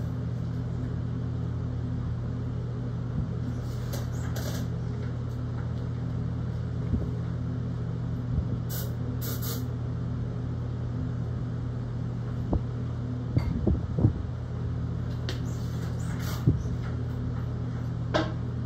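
Scattered knocks and clicks as the flywheel of a John Deere Type E hit-and-miss engine is rolled over by hand, the busiest stretch about two-thirds of the way in. A steady low fan-like hum runs under it.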